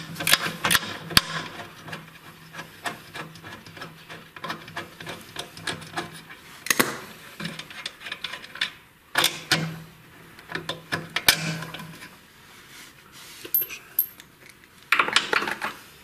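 Ratchet wrench clicking in quick runs as the bolts of a washing machine's shock absorber are undone, with a few sharper metal knocks in between.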